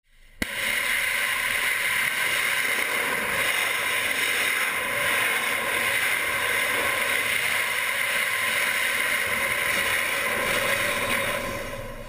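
NASA Morpheus lander's rocket engine firing in a tethered test: a loud, steady rushing noise with a faint tone in it. It starts abruptly about half a second in and fades away near the end.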